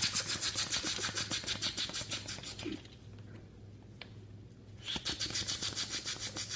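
A man doing Hannibal Lecter's hissing, fluttering lip-and-tongue slurp by mouth. It comes in two rapid bursts of about two and a half seconds each, the second starting a couple of seconds after the first ends.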